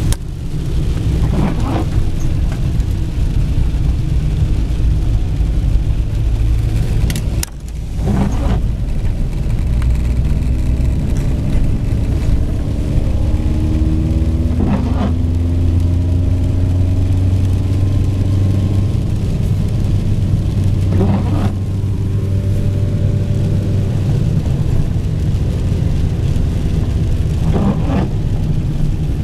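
Car cabin noise while driving: steady engine and road rumble, with tyres running on a wet road. A brief sound cuts through every six seconds or so.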